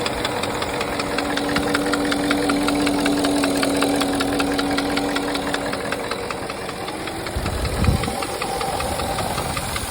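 Porsche Cayenne M48.00 4.5-litre V8 running with a fast, even knocking tick, the engine knock the owner is recording. A brief low thump comes about eight seconds in.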